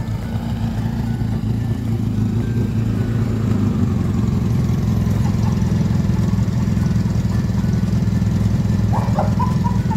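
Motorcycle engine running at low speed as the bike rolls up and stops close by, getting louder over the first few seconds and then idling steadily.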